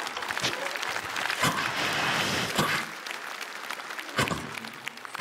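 Mouth-made sound effects voiced into a microphone: a hissing, crackling noise with several sharp clicks, imitating fire catching.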